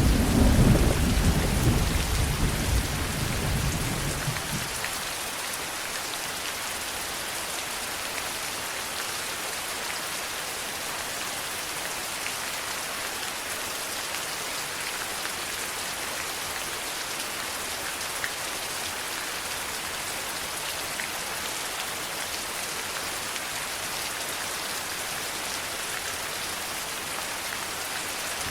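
Steady rain falling, an even hiss. A low rumble of thunder fills the first few seconds and dies away about four seconds in, leaving only the rain.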